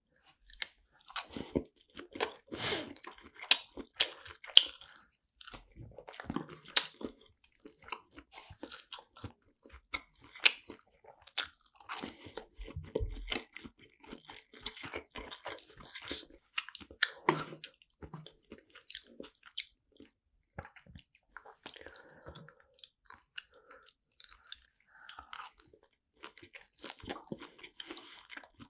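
Close-miked chewing and biting of sushi: a dense, irregular run of sharp mouth clicks and smacks with short pauses.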